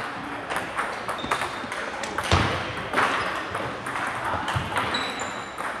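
Table tennis balls clicking off paddles and table tops in quick, irregular ticks during rallies, from the near table and neighbouring ones, with a louder knock about two and a half seconds in.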